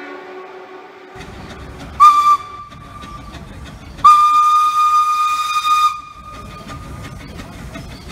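Small steam locomotive's whistle blowing one short blast and then one longer blast of about two seconds, a single steady pitch, over the hiss of steam.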